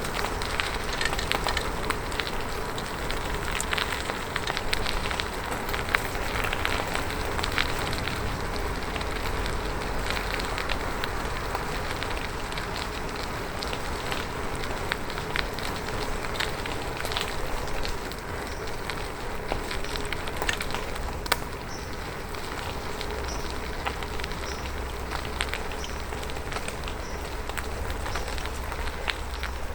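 Bicycle ride heard from the rider: tyres rolling over the road with a steady hiss, crackling with many small clicks throughout, over a low rumble.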